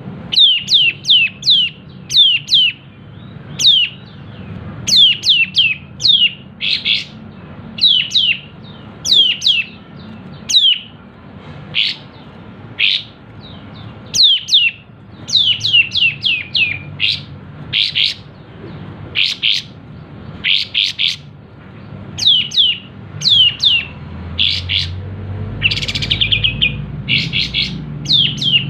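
Kapas tembak songbird singing in quick runs of sharp, high, downward-swept notes, two to five at a time, with a fast rattling cluster near the end.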